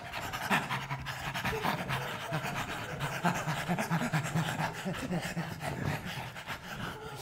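Actors imitating dogs, panting rapidly and breathily in a quick, even rhythm.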